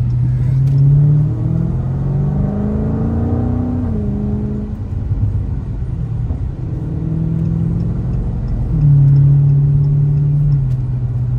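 A 2017 Dodge Challenger Scat Pack's 392 Hemi V8 (6.4 litres) is heard from inside the cabin while driving. Its exhaust note rises in pitch under acceleration, falls back about four seconds in, then runs steady and gets louder again near the end.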